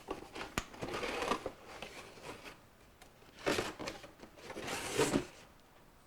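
Packaging being handled while a toy is unboxed: a sharp click, then three spells of rustling, about a second in, at three and a half seconds, and near five seconds.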